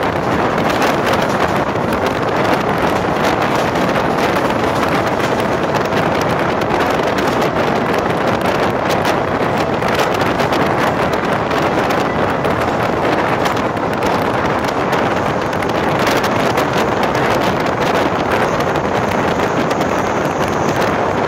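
Wind rushing over the microphone and wheels clattering on the track, heard from the open door of a passenger coach running at high speed, with frequent sharp clicks as the wheels pass over rail joints and points.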